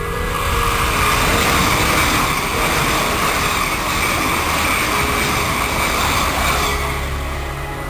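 ICE high-speed electric train passing at speed close by: a loud, steady rush of wheels on rail and air. It swells at once as the train comes alongside and eases slightly near the end as the last cars go by.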